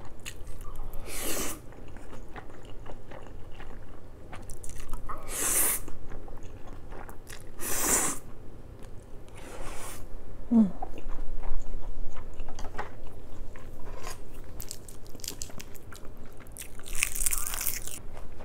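Close-up eating sounds of a person biting and chewing kimchi bibimbap and jjapaghetti, with louder moments about one, five and a half, eight and seventeen seconds in.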